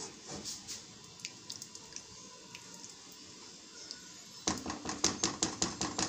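Chicken pieces in a thick masala cooking in a non-stick wok with a faint sizzle and the odd light tap of a spoon; about four and a half seconds in, the spoon starts stirring and scraping against the pan in quick strokes, about five a second.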